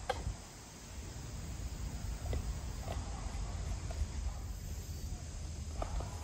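Insects chirping steadily in the background, with a low rumble underneath. A few light clicks and knocks come from plastic containers being handled at a picnic table.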